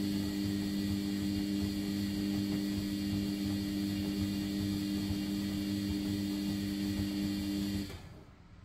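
Washing machine drum motor running, turning the drum through the wash with a steady hum and whine, then cutting out suddenly near the end as the drum stops at the end of a tumble.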